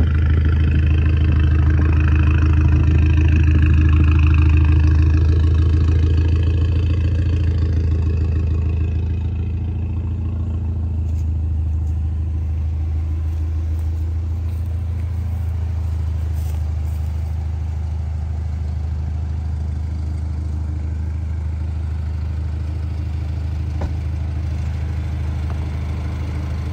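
Car engine idling steadily, a low drone that is louder for the first several seconds and eases off about nine seconds in.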